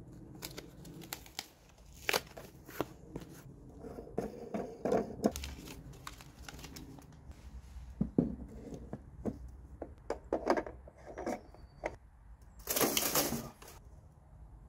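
Packaging of a reel of MIG welding wire crinkling and tearing as it is unwrapped, with scattered clicks and knocks as the spool is handled and fitted into the welder. A louder rustle lasting about a second comes near the end.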